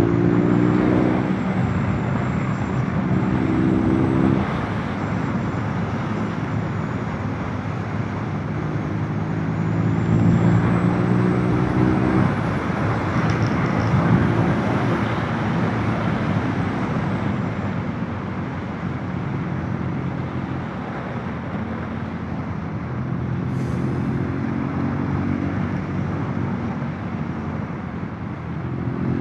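Motorcycle engine running while riding, with steady wind noise on the microphone. The engine note stands out and fades several times and shifts in pitch between stretches.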